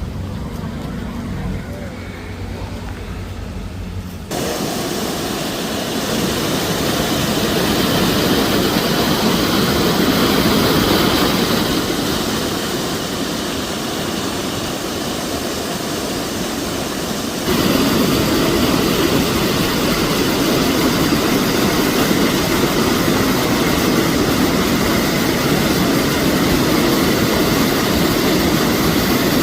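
A swollen flood river rushing steadily. The sound jumps louder abruptly about four seconds in and again a little past the middle.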